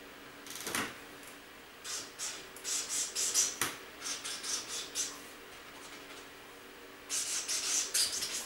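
Household things being handled and shifted among storage boxes: bursts of rustling and scraping, with a knock about a second in and a sharp click partway through.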